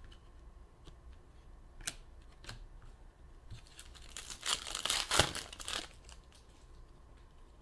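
A few light clicks, then about two seconds of crinkling and tearing starting about four seconds in: a trading-card pack's wrapper being torn open.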